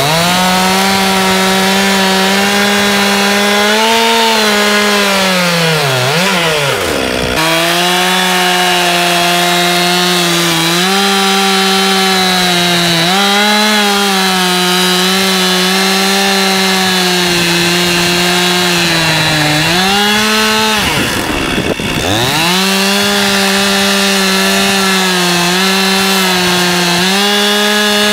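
Stihl two-stroke chainsaw running at high revs, cutting lengthwise along a log, its pitch wavering slightly with the load. About seven seconds in, and again about twenty-one seconds in, the engine note drops steeply and climbs straight back up.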